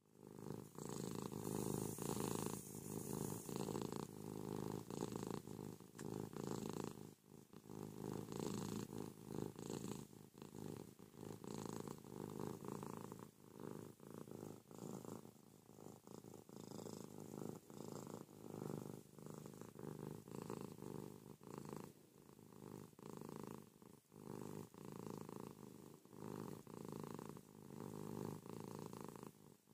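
Domestic cat purring noisily, the purr swelling and fading with each breath in and out, about every two seconds.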